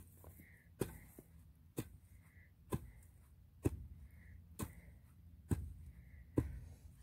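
Garden hoe chopping into the ground: a sharp strike about once a second, seven in all, evenly paced.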